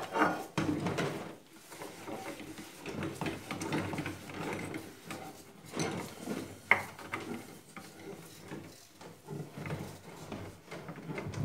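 Hands scrubbing a soapy glass bowl in a stainless-steel sink: irregular rubbing and handling noise with small knocks of glass against the sink, and one sharp knock about seven seconds in.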